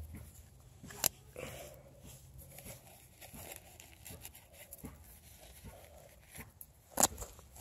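Faint crunching and rustling in dry twigs, dead brush and crumbly dirt, with scattered small clicks, a sharper click about a second in and a loud sharp snap near the end.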